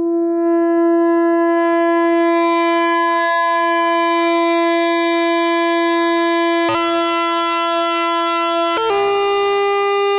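Behringer Odyssey analog synthesizer holding one buzzy, bright note that swells in slowly as its filter opens. About seven seconds in a second pitch joins, and near nine seconds the note steps higher.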